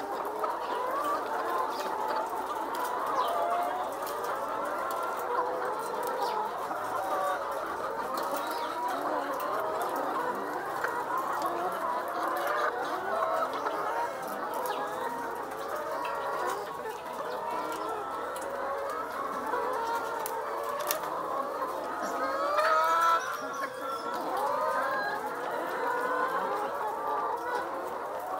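A dense flock of caged brown laying hens calling all at once, many overlapping clucks in a continuous chorus, with one louder call standing out near the end.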